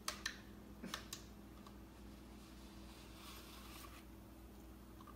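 Faint scratchy rustling of a cat's fur rubbing against the plastic bristles of a wall-corner self-groomer brush. A few light clicks come in the first second, over a faint steady hum.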